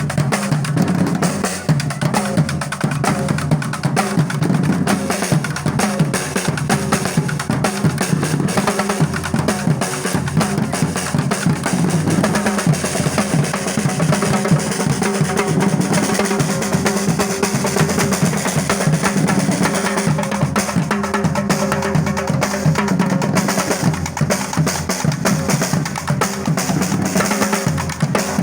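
Music with fast, steady drumming.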